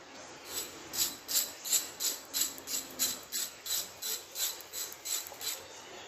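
Hand ratchet wrench clicking in quick back-and-forth strokes, about three a second, as the nut on the shaft of a car A/C compressor's pulley is run down; the strokes start about half a second in.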